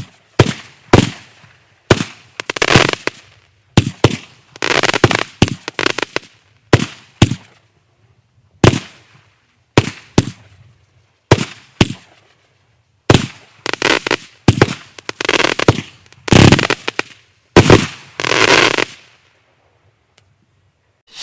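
Kimbolton Razzle Dazzle 49-shot firework cake firing: sharp reports one after another, roughly one to two a second, several followed by a longer crackle from crackling stars. The firing stops about nineteen seconds in.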